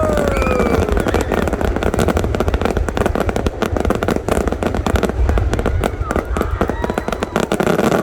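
Fireworks display: a dense, continuous run of cracks and bangs from bursting shells over a low rumble, loud throughout, with a falling tone or two at the very start.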